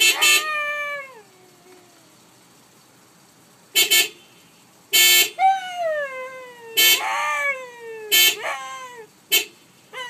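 Short car horn toots, about six of them, answered by a Siberian husky howling along. Each howl slides down in pitch, and the longest runs for about two and a half seconds from about five seconds in.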